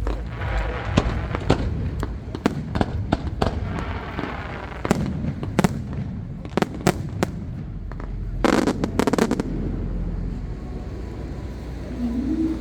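Fireworks going off: a rapid run of sharp bangs and crackles, with a dense burst of crackling about eight and a half seconds in, thinning out after about ten seconds.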